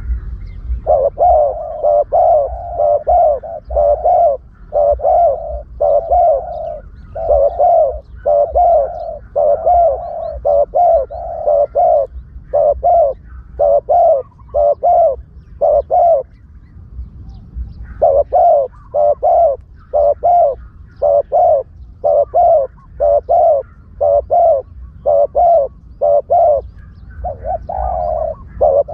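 Spotted dove cooing over and over, a lure call for trapping doves, with a short break about two-thirds of the way through. A low rumble runs underneath.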